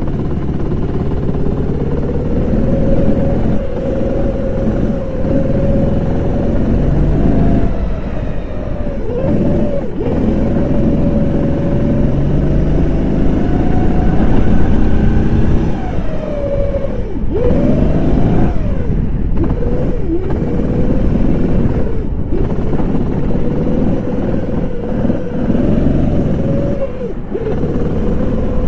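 Rental kart engine heard from on board, held at high revs along the straights. Its pitch drops sharply as the driver lifts off for the corners, most deeply about 17 seconds in, then climbs again under throttle.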